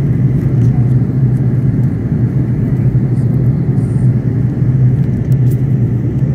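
Steady cabin drone inside an Airbus A330-900neo on approach: its Rolls-Royce Trent 7000 engines and the airflow over the fuselage making a loud, even rumble with a strong low hum.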